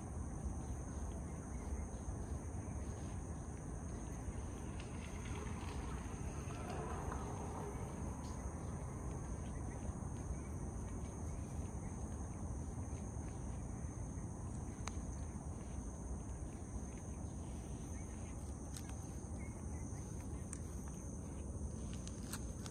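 Outdoor ambience: steady high-pitched insect trilling over a low rumble of wind, with a few soft clicks near the end.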